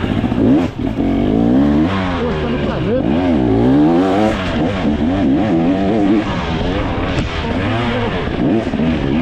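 Stock 2024 KTM 300 XC's two-stroke single-cylinder engine being ridden hard, revving up and down over and over with the throttle, its pitch climbing and falling every second or so, with a brief drop in loudness under a second in.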